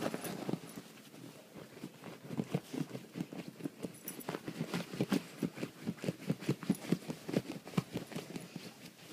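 A dog snuffling and nosing the bedding on a bed to bury a chew bone, a quick run of short nose puffs and rustles about four a second, with a brief lull about a second in.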